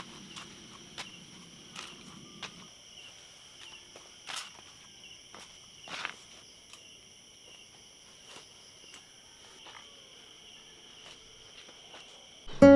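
Steady, high-pitched insect chorus with a few scattered faint clicks, and a faint low rumble that stops about two and a half seconds in. Acoustic guitar music starts abruptly near the end.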